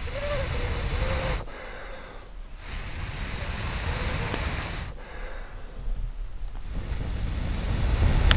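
A person blowing long, steady breaths into a smouldering friction-fire ember in a dry-grass tinder bundle to bring it to flame: three blows with short pauses between them, the last one the loudest.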